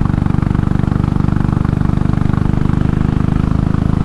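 Royal Enfield Classic 500's single-cylinder engine and exhaust running steadily while riding along at an even speed, a fast, regular beat of firing pulses.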